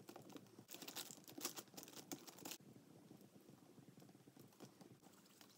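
Crumbly polymer clay being kneaded and broken between fingertips over baking paper: faint crackly ticks and rustling, busiest in the first two or three seconds, then a sparse scatter.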